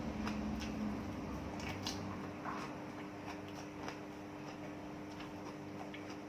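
Someone eating: small irregular clicks and soft wet mouth sounds, with a steady low hum underneath.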